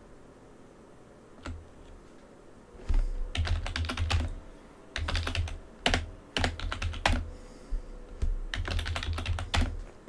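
Typing on a computer keyboard: a single keystroke about a second and a half in, then several quick runs of key clicks from about three seconds in, with a low thud beneath each run.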